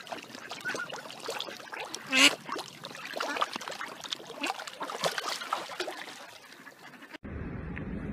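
Carp thrashing and splashing at the water surface, with ducks calling over it; one loud call about two seconds in. Near the end it cuts off abruptly to a low steady hum.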